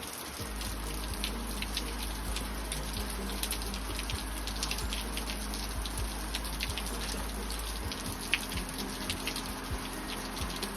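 Steady patter of falling water, a hiss sprinkled with many small drop-like ticks.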